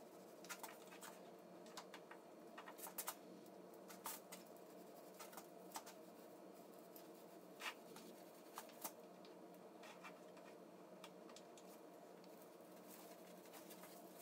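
Near silence: a low steady room hum with scattered faint clicks and light scratching as paint is brushed onto a steel workbench backstop.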